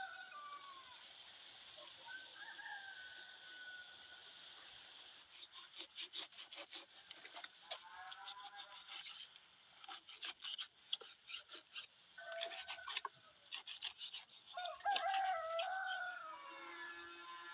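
Farmyard fowl: a rooster crows near the start and again, louder, near the end, with shorter calls in between. A long run of rapid clicks or taps fills the middle, over a faint steady high hiss.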